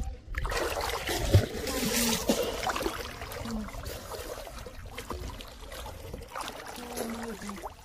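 Muddy pond water sloshing and splashing as a man moves through it chest-deep, groping along the bottom with his hands. A single thump comes about a second and a half in.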